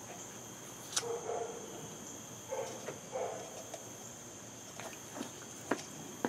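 Insects, crickets by their steady high trill, chirring in the background, with a few light clicks and knocks of a paintbrush and metal dope cans being handled on a table, sharpest about a second in and near the end.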